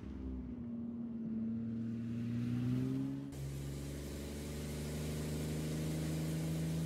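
Porsche Panamera's engine and exhaust pulling under acceleration, the note rising steadily for about three seconds. It then changes abruptly to a steady, even engine note.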